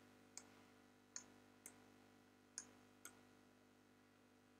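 Near silence with about five faint, separate clicks of a computer mouse, over a faint steady hum.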